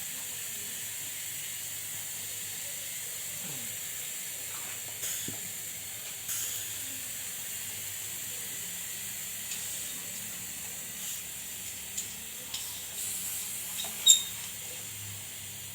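A steady hiss with a few light clicks and taps, and one sharp tick near the end.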